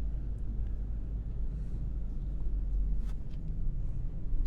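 Low, steady rumble of a car or truck's engine and tyres, heard from inside the cabin while driving slowly along a paved park road, with a few faint clicks.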